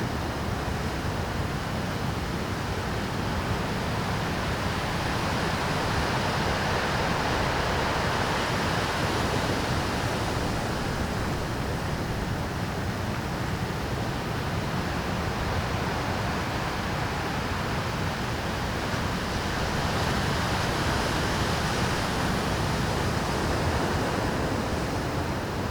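Rough Pacific surf breaking against a rocky shore: a continuous wash of waves that swells twice, about a quarter of the way in and again near the end.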